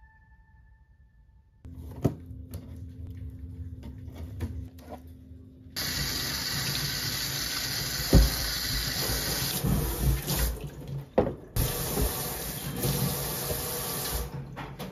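Kitchen tap running hard into a stainless steel sink over sweet potatoes in a bamboo basket as they are scrubbed by hand. A few knocks come as they are handled. The water starts about six seconds in, after a quieter stretch with a low hum and a few clicks, and cuts off at the very end.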